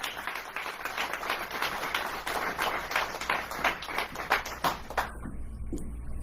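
Audience applauding, a dense patter of many hands clapping that stops abruptly about five seconds in.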